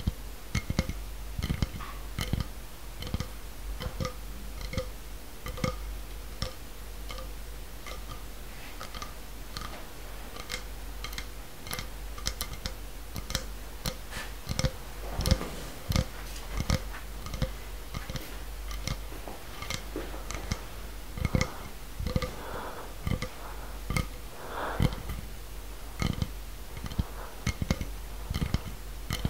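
A run of short, sharp clicks and pops at an uneven rhythm, with a steady low hum underneath and a few softer rushing sounds in the second half.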